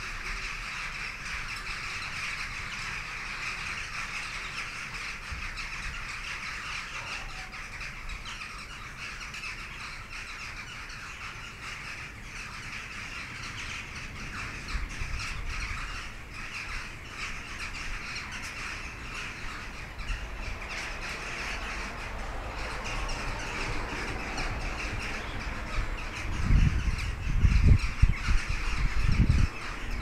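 A large flock of western jackdaws calling all at once, a dense, unbroken chatter of overlapping calls, typical of birds gathering at an evening roost. Near the end a few loud low rumbling buffets cut in.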